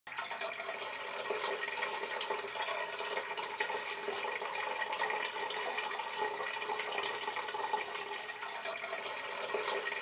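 A thin stream of water from a tabletop fountain pouring out of a terracotta jug into a basin below, with a steady trickling splash.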